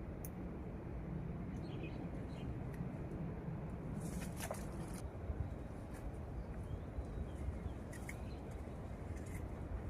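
Outdoor ambience: a steady low rumble with a few short clicks and rustles, about four seconds in and again near the end.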